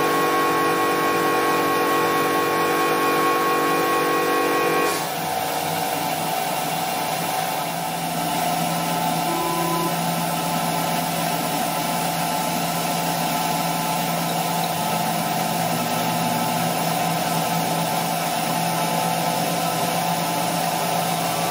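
CNC router spindle running as a small flat-ended cutter mills clear acrylic, with an air jet blowing chips away from the cut: a steady machine whine of several held tones over a hiss. The tones change abruptly about five seconds in, then hold steady again.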